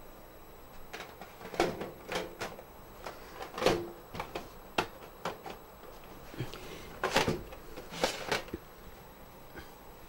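An optical drive being slid into the front drive bay of a metal PC tower case: a run of irregular clicks and knocks of metal and plastic, loudest around four seconds in and again about seven and eight seconds in.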